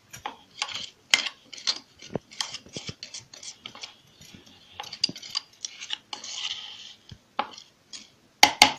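Steel spoon scraping and clinking against the inside of a stainless steel mixer-grinder jar, scooping out a coarse paste ground without water. Irregular short scrapes and taps, a longer scrape a little past the middle, and sharp clinks near the end.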